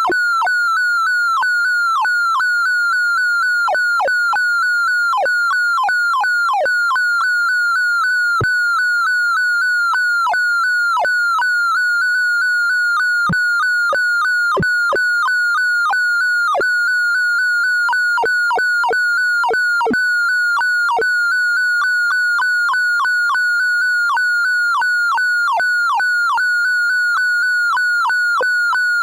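Synthesized sorting-visualiser tones of a Tim Sort run: a rapid, unbroken stream of short electronic beeps warbling around one pitch, cut through by frequent falling sweeps. Each beep is an array access, its pitch set by the value of the element being read.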